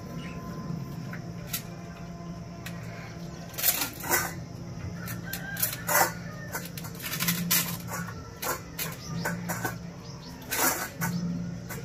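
Two German shepherd puppies eating wet mutton gravy and rice from a steel bowl and a ceramic bowl: wet lapping and chewing, with sharp clinks and knocks as muzzles push the bowls. The clinks come thicker and louder from a few seconds in.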